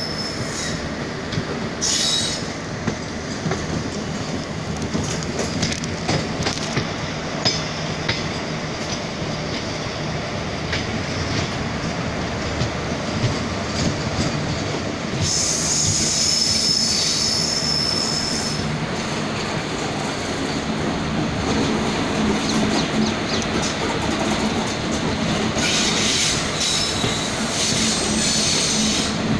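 Indian Railways passenger coaches running on the track, heard from an open door: a steady rumble with wheel clicks over the rail joints. Shrill wheel squeal rises briefly about two seconds in, for a few seconds about halfway through, and again near the end, where the train takes a curve.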